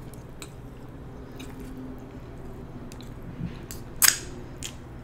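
Close-up mouth sounds of someone eating: quiet chewing with a few short wet clicks and smacks, the loudest about four seconds in as she licks her fingers.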